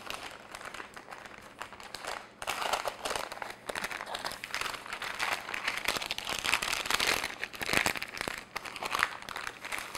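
Parchment paper crinkling and crackling as hands fold and crease it into a packet around slabs of butter. It is fainter for the first couple of seconds, then busier.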